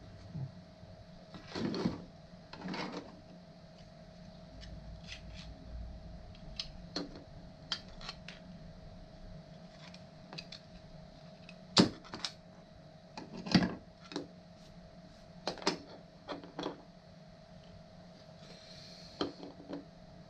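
Scattered sharp clicks and knocks of 3D-printed parts being handled and fitted together, the loudest about twelve and thirteen and a half seconds in, over a steady faint hum.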